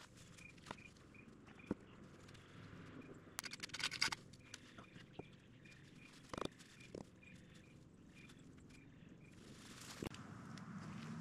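Quiet outdoor ambience: a bird repeats a short high chirp a few times a second, while wooden boards knock now and then, with a brief clatter about four seconds in as they are handled. Near the end a steady noise like wind rises.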